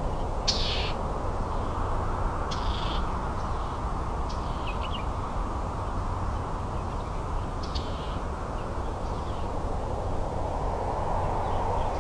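Natural ambience: a steady low background rush with short, high bird calls every couple of seconds.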